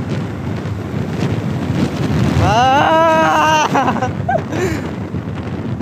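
Wind buffeting the microphone of a scooter ridden at about 65 km/h, over steady road and engine noise. About two and a half seconds in, a person's drawn-out pitched voice rises and holds for a little over a second.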